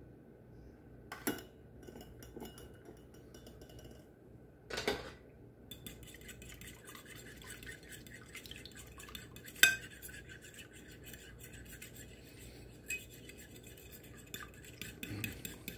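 Eggs being beaten in a glass bowl, metal clinking and scraping against the glass to break up the whites for an egg wash. A few separate clinks come in the first five seconds, then fast steady clinking from about six seconds in as a fork beats the eggs.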